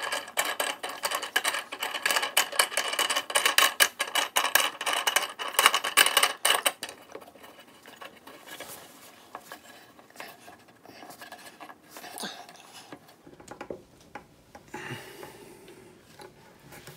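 Metal desk clamp of a monitor stand clinking and rattling as its threaded clamp screw is turned by hand: busy, loud clicking for about the first seven seconds, then only faint scattered clicks and rubbing.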